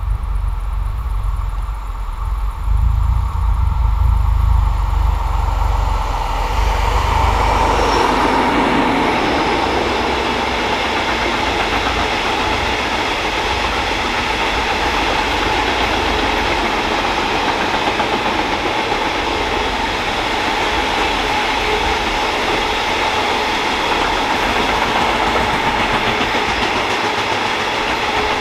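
Freight train of open gondola wagons rolling past on the main line: the wheels on the rails make a steady rolling noise with a thin ringing tone in it, setting in loudly about seven seconds in.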